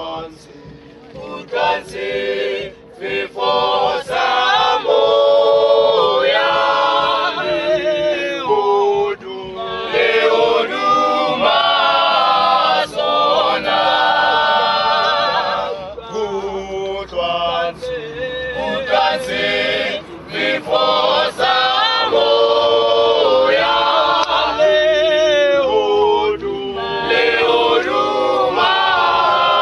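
Male vocal group singing a cappella in several-part harmony, the full group coming in about a second or two in.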